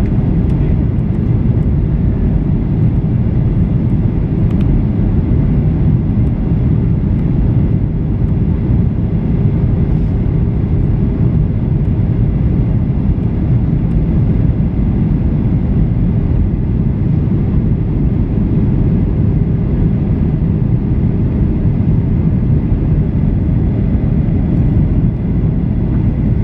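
Boeing 737-800 airliner in flight, heard from inside the cabin: a loud, steady low rumble of its CFM56 jet engines and rushing air, with a faint steady hum.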